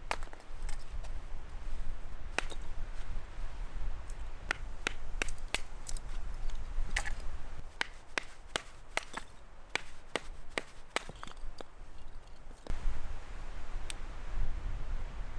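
Firewood being chopped or split into small pieces: a run of sharp, irregular wooden knocks and cracks that thin out near the end.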